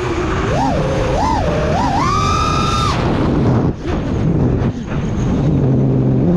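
Brushless motors of a 6S five-inch FPV quadcopter (Emax Eco II 2306 1700KV, tri-blade props) whining as the throttle is punched and eased. The pitch swoops up and down several times and holds high for about a second, then drops out and settles low after the middle. A rushing noise runs underneath.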